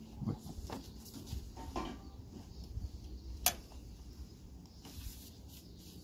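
Handling noises from fitting a serpentine belt by hand around the engine pulleys: faint scuffs and light knocks, with one sharp click about three and a half seconds in.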